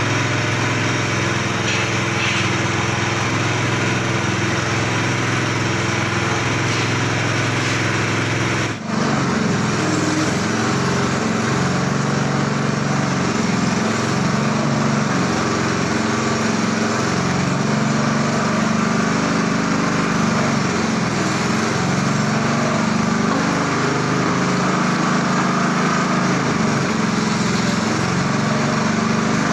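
Homemade peanut-frying machine running, its motor and drive making a steady mechanical drone. There is a brief drop about nine seconds in, after which a wavering low hum comes up under it.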